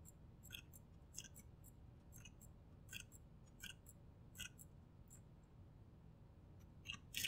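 Faint, sharp clicks of a computer mouse, spaced irregularly a little under one a second with a quick cluster near the end, over near-silent room tone.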